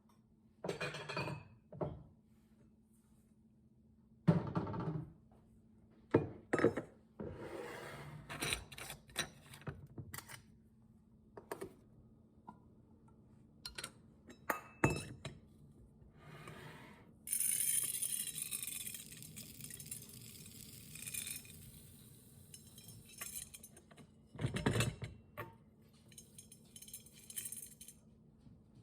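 Glass jars and kitchen containers clinking and thunking as they are handled and set down. Past the middle comes a few seconds of dense rattling hiss as dry goods are poured into a container.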